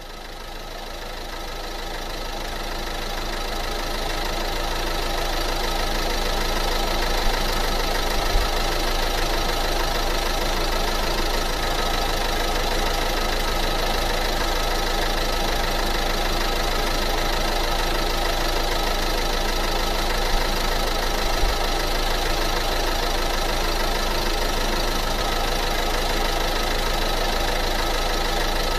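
A steady, engine-like running sound that fades in over the first few seconds and then holds even, with a few faint knocks along the way.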